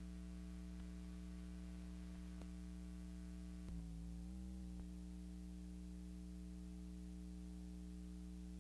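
Steady electrical hum with a faint hiss on a silent film's transfer, no other sound. About four seconds in the hum briefly dips and wobbles in pitch for about a second, with a faint click before and after, as the reel break passes.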